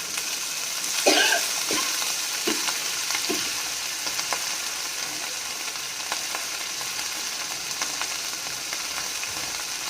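Onions and masala frying in hot oil in a pan, a steady sizzle. A spoon knocks and scrapes against the pan a few times in the first few seconds as fresh coriander is stirred in.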